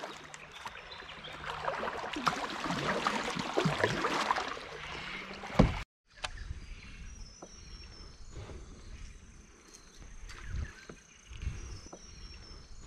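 Kayak paddling on a river: paddle strokes and water splashing and dripping around the plastic hull, with small knocks. After a cut about six seconds in it turns quieter, water lapping at the hull with a few dull knocks.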